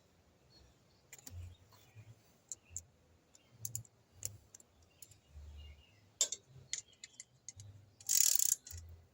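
Sparse small clicks, taps and soft knocks of metal parts and tools being handled while a bolt or plug on a Yamaha TW200 motorcycle is threaded in by hand. About eight seconds in there is a short, louder rustling scrape.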